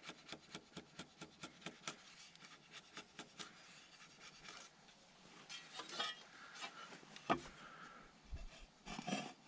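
A hand tool scraping on wood in quick, regular back-and-forth strokes, about four or five a second, which stop about three and a half seconds in. Scattered scrapes follow, with one sharp knock about seven seconds in.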